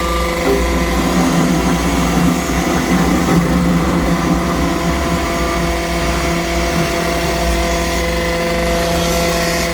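Engine of road construction machinery running steadily under load, with a constant hum and some rougher rumble in the first half.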